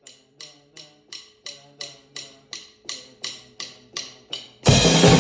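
A song intro of evenly repeated pitched ticks, like a wood block, about three a second and growing steadily louder. Near the end the full band and a drum kit crash in together.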